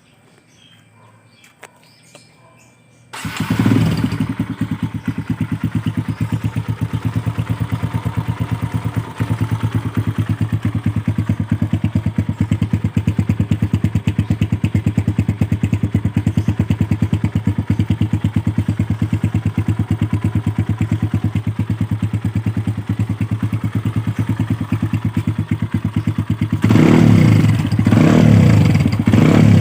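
Kawasaki KLX150's single-cylinder four-stroke engine breathing through a Yoshimura full carbon muffler. It starts about three seconds in after a few quiet seconds, then idles with a steady, even exhaust pulse. Near the end it is blipped twice, the revs rising and falling each time.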